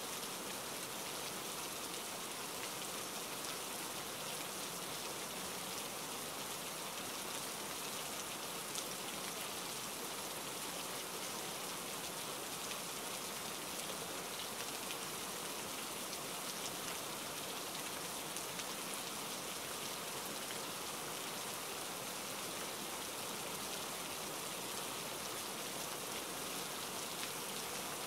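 Steady rain falling, an even, unbroken hiss with faint ticks of individual drops.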